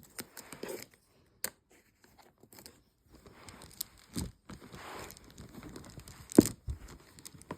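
Rustling, crinkling handling noise as freshly washed fidget toys are dried by hand, with scattered clicks and one louder thump about six and a half seconds in.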